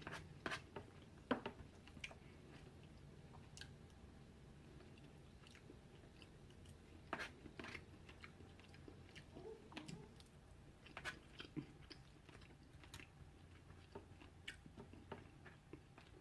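A person chewing food close to the microphone: faint, irregular wet mouth clicks and smacks, with the sharpest click about a second in.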